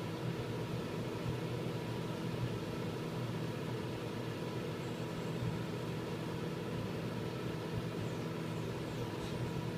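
Microwave oven running while it heats a cup of water: a steady hum with an even whir over it.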